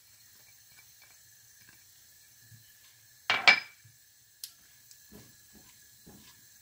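Kitchenware clattering against an enamelled cast-iron pot: two quick loud clanks about three seconds in, then a sharp click. This is followed by a silicone spatula stirring chopped onion and garlic in the pot, with faint soft knocks.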